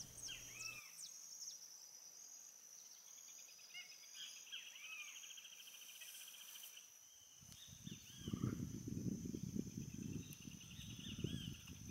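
Faint outdoor ambience: a steady high insect drone, with short arched bird calls repeating and a buzzy trill now and then. From about eight seconds in, a low rumble comes up and is the loudest sound.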